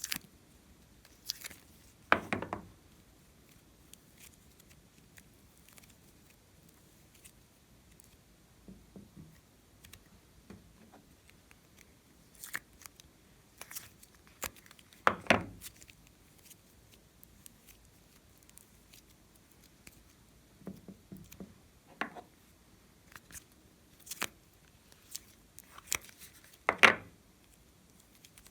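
Clear slime being handled and mixed by hand: scattered sticky clicks and crackles, with three louder squelching pops spread through, one a couple of seconds in, one midway and one near the end.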